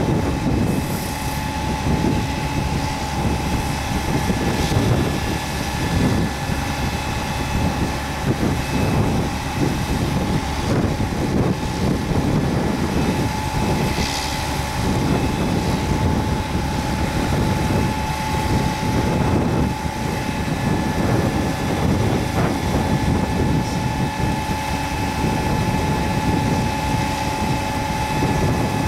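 Multilift truck's diesel engine running under load, driving its hydraulic lifting arm as it hoists a full sugar cane bin, with a steady whine over a low rumble.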